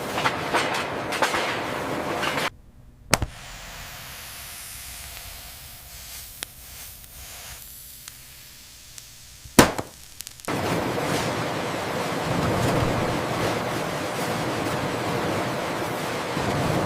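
Loud, steady mechanical rattling and clatter. About two and a half seconds in it cuts off sharply to a much quieter hum broken by two sharp clicks, and the rattling comes back suddenly a little past halfway.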